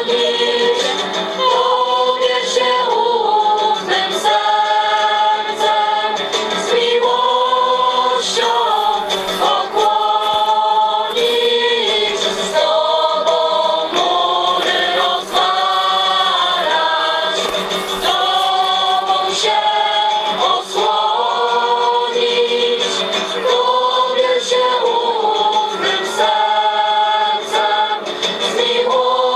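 A choir singing a slow religious hymn in long held chords.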